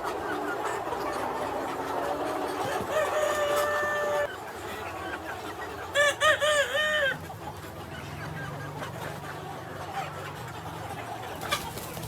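Free-range village chickens calling: one long held call about three seconds in, then a quick run of four short rising-and-falling calls about six seconds in, with softer clucking around them.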